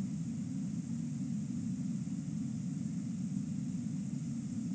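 Steady rush of fast-flowing river water: a constant low rumble with a hiss over it, with no chewing or other separate sounds standing out.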